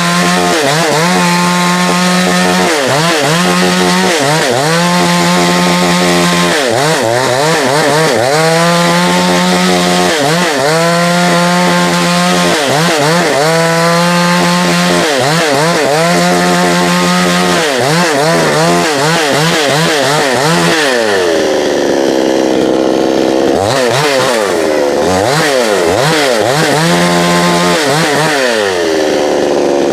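Two-stroke gas chainsaw running, its engine speed dipping and climbing back every second or two. About two thirds through it drops lower for a few seconds, then revs up again.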